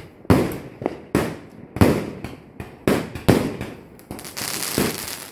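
Fireworks going off: a rapid series of sharp bangs, roughly one every half second, each trailing away. From about four seconds in they give way to a steady hissing crackle of burning fireworks.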